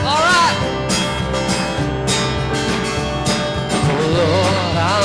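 Live worship band playing, with strummed acoustic guitar and drums. A voice rises briefly at the start and sings again near the end.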